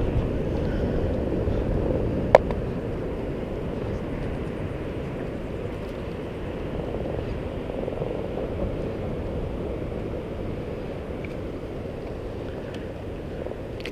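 Steady low rush of surf and wind on the microphone, with one sharp click a little over two seconds in.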